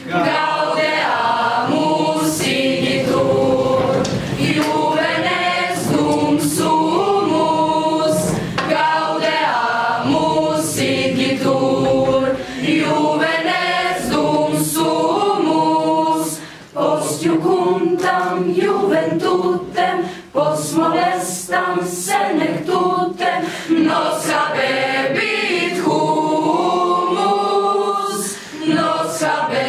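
A mixed school choir of girls and boys singing unaccompanied, in phrases with short breaths between them.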